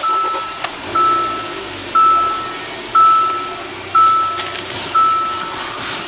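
2014 Hyundai Santa Fe's dashboard warning chime beeping six times, about once a second, as the car is started, over a faint low engine hum.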